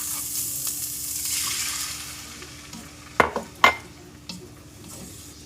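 Hot pan of margarine, minced garlic and chicken sizzling as water is added, the sizzle dying down after about two seconds. About three seconds in come two sharp knocks, then a fainter one.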